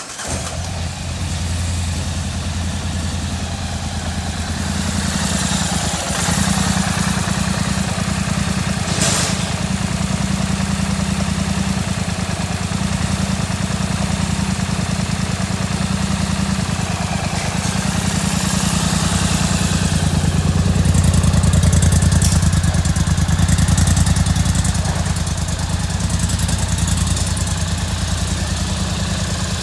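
Polaris Sportsman 850 ATV's 850 cc parallel-twin four-stroke engine idling steadily at about 1,200 rpm in neutral. There is a single sharp click about nine seconds in.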